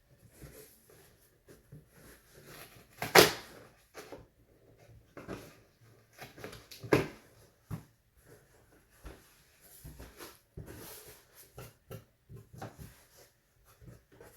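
A cardboard shipping box being opened by hand: irregular scraping, rustling and clicks, with two louder sharp sounds about three seconds in and about seven seconds in.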